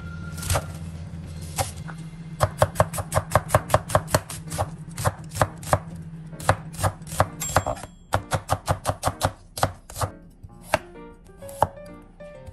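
Chef's knife chopping vegetables on a wooden cutting board: a run of sharp knocks, about three a second, as it cuts through napa cabbage, then onion, then carrot.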